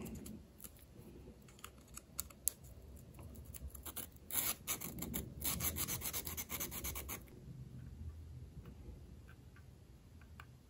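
A tiny brass fitting rubbed back and forth on sandpaper backed by a steel ruler, to open up its slot a little at a time. A few light clicks come first, then about four seconds in a quick run of faint scratchy strokes lasts about three seconds before it goes quiet.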